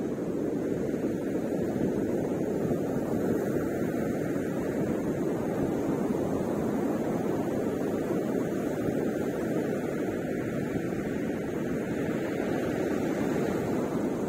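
Ocean surf breaking on the beach: a steady low rumble of waves with no distinct single crashes.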